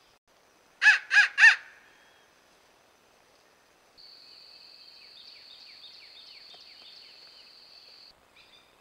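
A crow cawing three times in quick succession, harsh and loud. Afterwards a steady high-pitched buzz runs for about four seconds with a rapid series of faint chirps under it, then cuts off.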